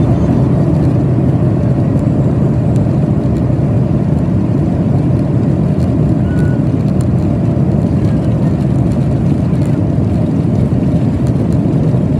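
Steady low rumble of a Boeing 737-800's engines and rushing air, heard from inside the passenger cabin.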